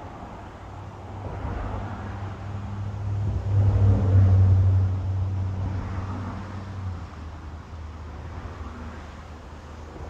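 A motor vehicle passing by: a low engine rumble that swells to its loudest about four seconds in and fades away by about seven seconds.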